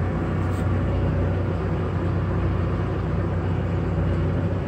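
Tractor engine running steadily under load as it pulls a cabbage transplanter, a continuous low drone.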